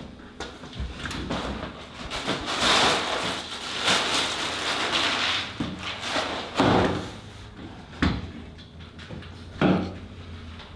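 Plastic liner bag of a cereal box crinkling and rustling as it is pulled about, then three sharp knocks as the box and things are set down on the wooden table.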